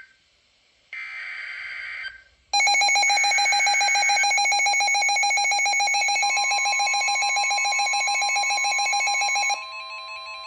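Emergency Alert System broadcast tones. A short screeching digital header burst ends about 2 s in. About half a second later a loud, rapidly pulsing electronic attention tone starts, and a second, higher tone joins it midway. The attention tone cuts off near the end into a quieter, stepping sequence of electronic beeps.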